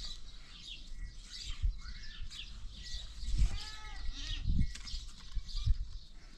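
Animal calls with many short high chirps throughout, a few arching pitched calls about three seconds in, and scattered low thumps.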